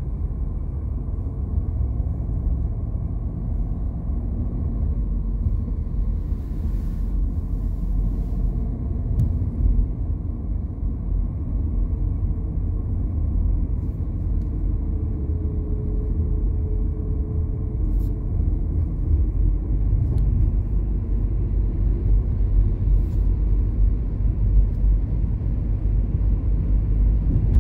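Steady low rumble of a car driving on the interstate: tyre and engine noise, even throughout.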